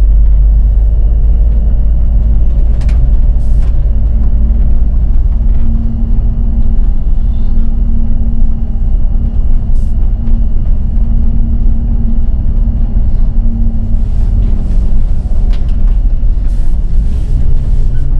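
City bus under way: a steady low engine and road rumble, with a few short clicks or rattles.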